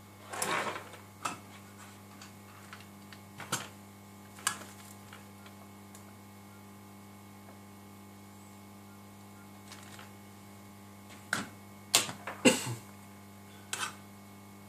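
Scattered light clicks and taps of tools and small objects, a flux jar and tweezers among them, being picked up and set down on a wooden workbench. There are a few at the start and a louder cluster near the end, over a steady low hum.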